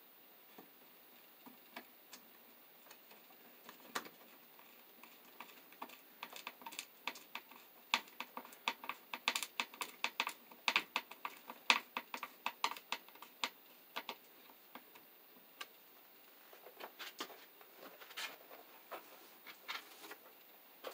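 A run of irregular clicks and plastic rattles from hands working blue corrugated ENT flexible plastic conduit and its fittings into place overhead, busiest in the middle.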